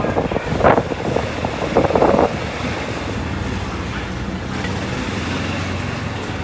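Wind buffeting the microphone in loud gusts for the first two seconds or so, then a steady low hum of street traffic.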